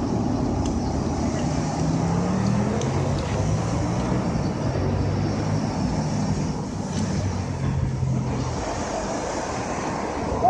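Steady road traffic noise, with a motor vehicle's low engine hum running through the middle few seconds.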